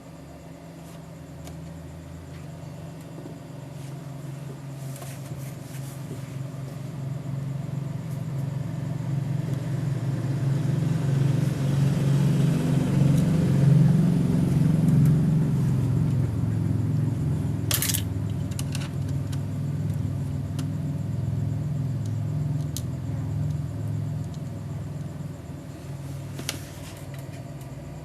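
Low motor drone that slowly grows louder over about a dozen seconds and then fades away again, with a sharp click about two-thirds of the way in and a fainter one near the end.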